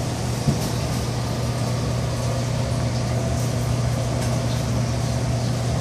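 Steady low hum of commercial kitchen machinery, such as the ventilation, with a single light click about half a second in.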